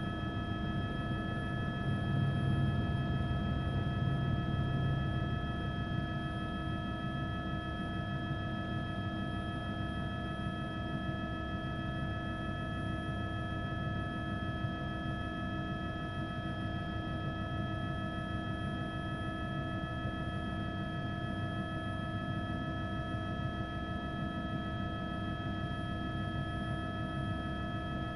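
Aircraft engine and rotor noise, as from a news helicopter: a steady low rumble under several steady whining tones, swelling a little a few seconds in.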